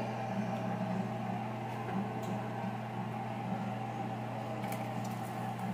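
Steady low hum that does not change, with a few faint ticks in the middle and toward the end.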